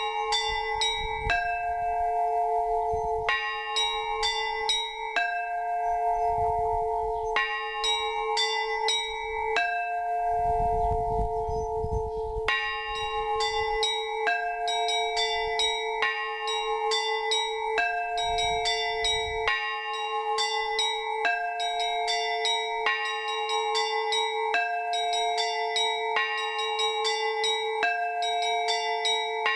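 Russian Orthodox trezvon rung on a monastery belfry. Small high bells are struck in quick rhythmic runs every couple of seconds over the steady ringing of larger bells, and the pattern grows busier about halfway through. This is the festive peal that calls the faithful to the Divine Liturgy.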